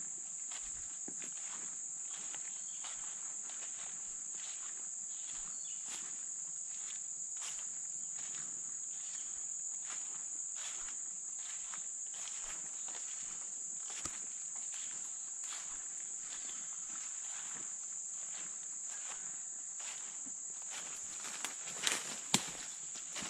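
Footsteps crunching through dry leaf litter at a walking pace, under a steady, high-pitched insect chorus. A few sharper snaps near the end.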